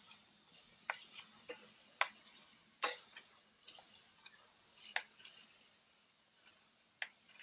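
Knife slicing a green onion on a cutting board on the bias: irregular, faint, sharp taps of the blade hitting the board, about a dozen with uneven gaps between them.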